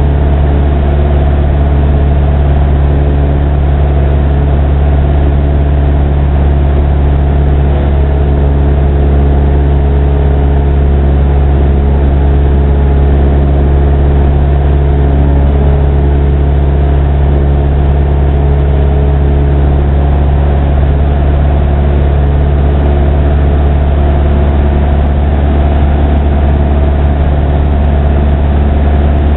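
Airplane's engine and propeller droning steadily in level flight, a loud, unchanging hum with a strong low tone.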